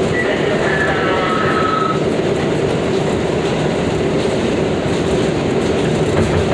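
New York City 7 subway train running at speed between stations, heard from inside the car: a steady loud rumble and rattle. In roughly the first two seconds there is a faint high tone that slides down, a light squeal from the wheels or rails.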